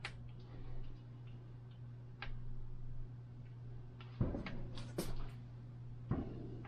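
Scattered light clicks and taps of rear brake cable housing being worked into the guides on a bicycle frame, with a cluster of them about four to five seconds in, over a steady low hum.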